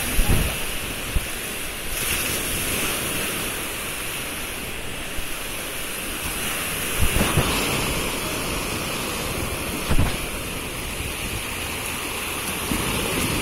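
Sea surf breaking and washing up a beach, a steady rushing wash, with wind buffeting the microphone in a few short low thuds.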